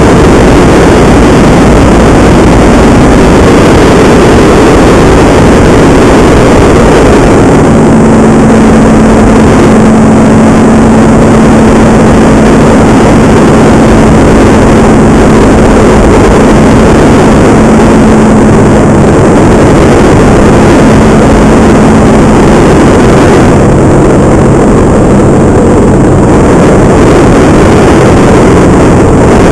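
Paramotor engine and propeller running at a steady throttle, with heavy wind noise on the microphone.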